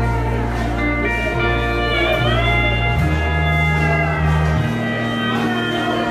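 Live country band playing an instrumental break, with a steel guitar sliding up between notes over a steady bass line.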